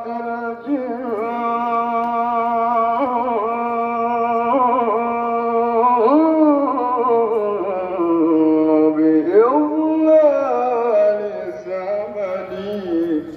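A man's solo voice chanting a maulid ode in long, ornamented notes. It holds one note for about six seconds, slides down to a lower note, then leaps back up with a rise about nine seconds in.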